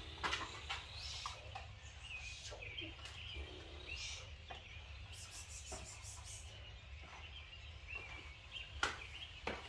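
Birds chirping and calling in the background over a low steady hum, with a few sharp scuffs of footsteps on the concrete floor.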